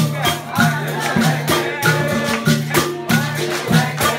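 Capoeira bateria playing a steady rhythm: berimbaus struck repeatedly with the rattle of caxixi shakers and a pandeiro, with singing voices over it.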